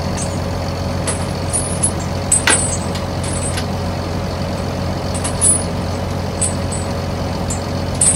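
Heavy steel flail chains clinking several times in short, sharp knocks as they are handled and hung on a flail drum, over a steady engine drone.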